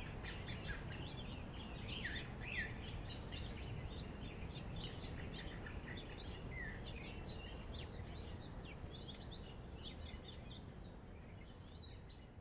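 Outdoor ambience of many small birds chirping and twittering in quick short calls over a steady low background rumble, slowly fading out near the end.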